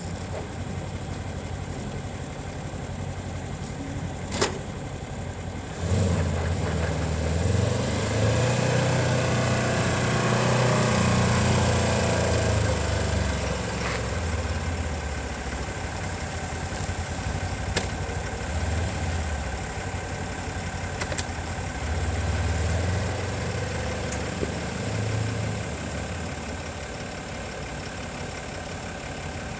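Polaris Ranger Crew XP1000 side-by-side's engine running, getting louder about six seconds in, with a few swells in engine speed over a steady idle.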